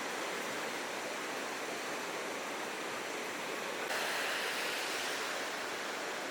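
Ocean surf washing on the shore, a steady hiss, with a louder wash of surf setting in suddenly about four seconds in.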